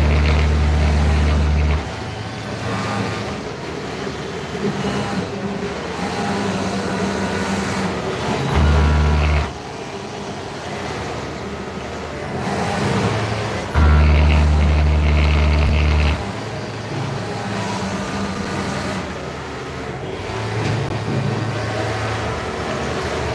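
Industrial sewing machines running in short bursts: a low hum that starts and stops abruptly, with the longest runs at the start, about nine seconds in and from about fourteen to sixteen seconds, over the constant din of other machines on the floor.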